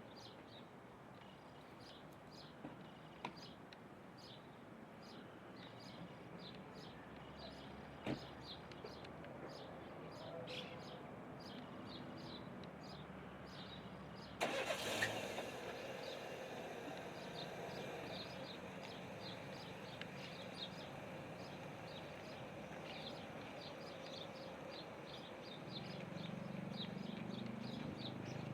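Small birds chirping over steady street traffic, short high chirps repeating about twice a second. About halfway through comes a brief loud noisy burst, and the low traffic rumble grows louder near the end.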